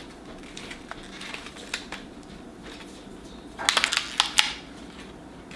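Clear plastic blister packaging of a new toothbrush being handled and pried open: scattered clicks and crinkles, with a quick run of sharp plastic cracks and crackles a little over halfway through.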